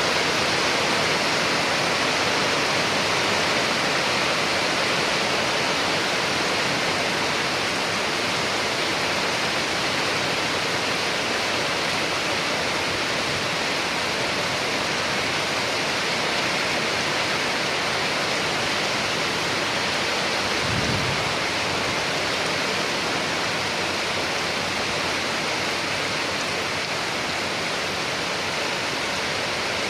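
Steady rain falling, an even hiss with no letup. About two-thirds of the way through there is one brief low thud.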